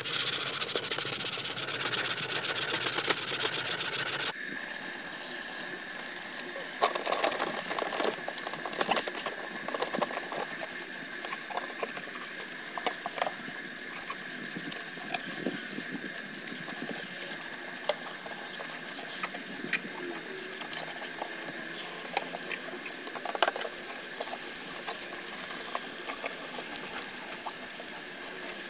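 Water poured over a plastic motorcycle body panel and splashing onto stones as the panel is washed by hand, with scattered small splashes and knocks. A louder steady hiss fills the first four seconds, then drops off suddenly.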